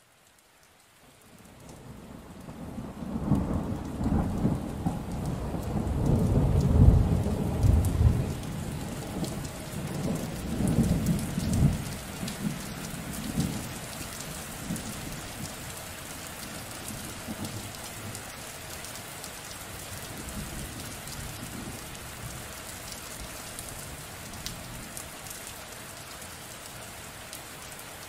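Rain fading in from silence, then a long rolling rumble of thunder that swells, peaks about seven seconds in and dies away by about twelve seconds. Steady rain hiss carries on alone after it.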